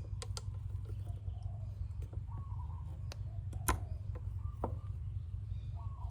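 Several sharp, short clicks, a couple early and the loudest a little past the middle, over a steady low hum, with a few faint brief chirps.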